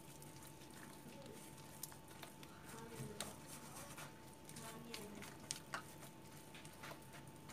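Faint squelching and patting of a thick maida batter being worked by hand in a steel bowl, with scattered light clicks.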